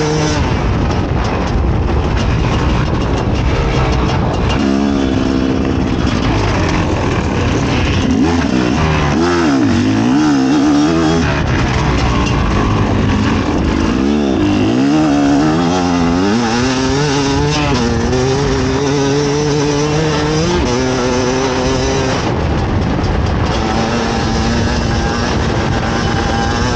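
Fantic XE 300 two-stroke enduro motorcycle engine running hard off-road. Its revs rise and fall repeatedly with the throttle, then hold steadier near the end.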